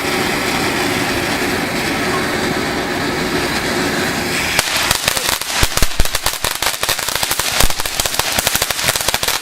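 Consumer fireworks: a steady spraying hiss, then about halfway through a dense, irregular run of sharp crackling pops.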